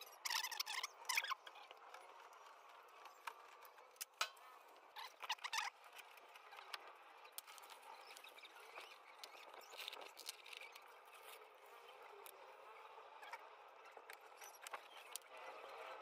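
Faint scattered clicks, rustles and scraping from hands handling a washing machine's wiring harness and plastic parts, with a few louder scrapes in the first second and around five seconds in.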